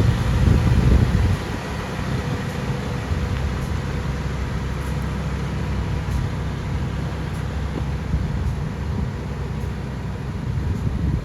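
A heavy machine's engine running with a steady low rumble, louder for about the first second and then settling at a slightly lower, even level.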